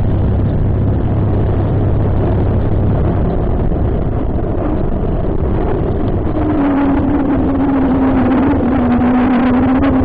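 A vehicle engine running steadily under loud wind rush. About six seconds in, a steady engine note comes up and sinks slightly in pitch.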